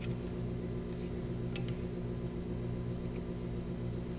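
Steady low electric hum, as of a motor or appliance running, with a few faint metal clicks about one and a half to two seconds in as pliers work at the valve of a small air-cooled engine.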